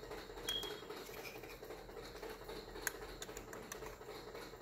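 Faint clicks and one short high tone over a steady low hum while the water race game's controls are switched over to run the units in reverse.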